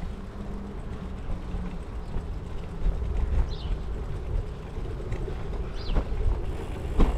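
Wind rumbling over a bicycle-mounted camera's microphone, mixed with the rolling rumble and rattle of the bike's tyres on a paved footpath, with a couple of sharp knocks near the end as the bike jolts.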